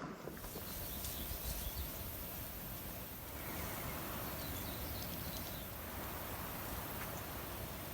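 Outdoor natural ambience: a steady hiss of background noise with a few faint, short chirps of small animals.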